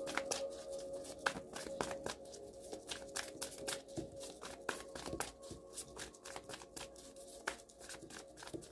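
A deck of tarot cards being shuffled by hand: a quick, irregular run of card flicks and clicks, several a second, with faint background music underneath.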